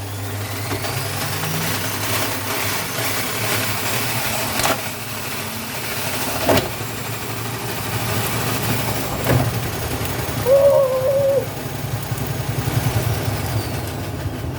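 Vestel washing machine spinning an unbalanced, oversudsed load: a steady motor hum with a faint whine that climbs early on and falls away near the end, and the drum knocks sharply three times. A brief wavering hoot sounds about ten seconds in.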